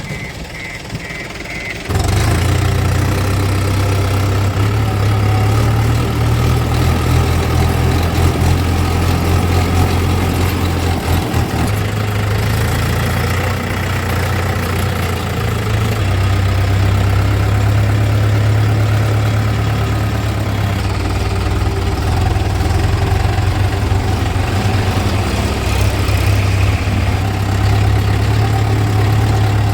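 Heavy diesel engine running loud and steady. It comes in suddenly about two seconds in, after a quieter stretch.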